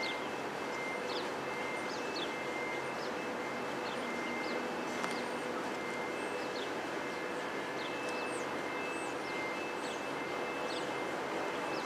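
Steady background noise with a faint constant whine, and short, falling high chirps of small birds scattered throughout.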